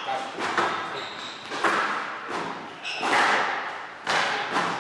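A squash rally: sharp racket hits and the ball smacking off the walls, about one hit a second, each ringing briefly in the enclosed court, with the odd squeak of court shoes.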